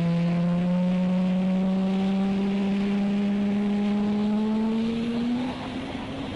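Jet aircraft in a display flypast, a steady engine hum slowly rising in pitch, then falling away sharply about five and a half seconds in.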